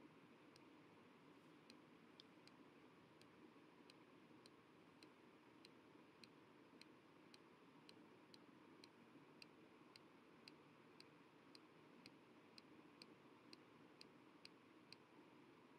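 Faint mouse-button clicks at an even pace, about two a second, over a low hiss: the next-page button being clicked again and again.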